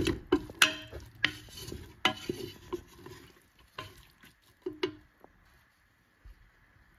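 Wooden spatula stirring chopped onions in a little oil in a large metal pot, knocking and scraping against the pot in an irregular run that stops about five seconds in.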